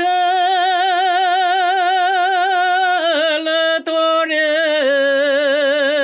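A woman singing a Romanian pricesnă (religious folk hymn) unaccompanied and very slowly. She holds long notes with a wide vibrato, breaks briefly about three seconds in, then settles on a lower held note.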